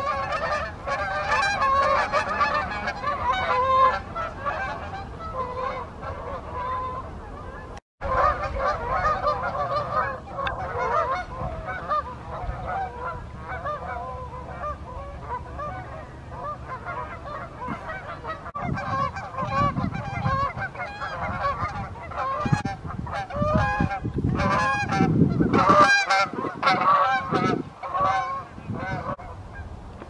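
A flock of Canada geese honking in flight, many overlapping calls at once, cutting out for an instant about eight seconds in. Bursts of low rushing noise come through in the second half.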